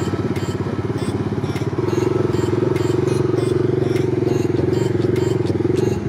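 Tractor engine driving a wheat thresher at work: a steady low throb with a light regular ticking over it, getting louder about two seconds in.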